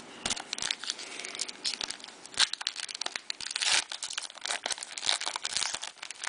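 A trading-card pack wrapper crinkling and tearing open as it is handled, a dense run of irregular crackles and short rustles.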